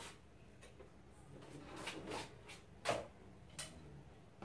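Thin plastic sheets and parts of an opened LED TV's backlight being handled: scattered light clicks and taps with a brief rustle, and a sharper knock about three seconds in.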